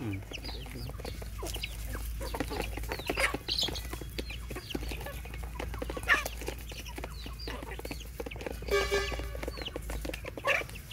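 Chickens clucking, with short high calls throughout and one louder drawn-out call about nine seconds in.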